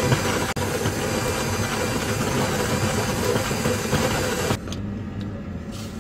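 Cordless rechargeable electric coffee grinder running steadily as it grinds beans, its motor stopping about four and a half seconds in.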